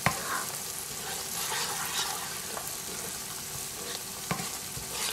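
Coconut cream and curry paste sizzling in a hot non-stick frying pan while a silicone spatula stirs and scrapes through it, with a sharp knock at the start and a lighter one about four seconds in.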